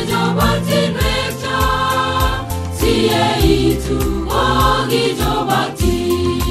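Choir singing a gospel song over a backing track with a steady beat and bass.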